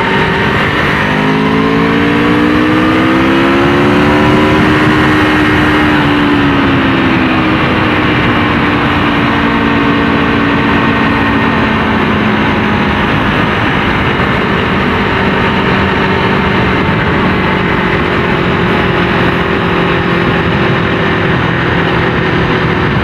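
Aprilia RSV4 RF's V4 engine pulling hard under throttle, its pitch climbing for a few seconds, then easing off and settling into a steady cruise, over a constant rush of wind and road noise.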